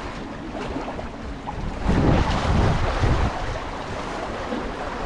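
Wind buffeting the microphone over choppy sea water washing and lapping. The gusts grow stronger about two seconds in.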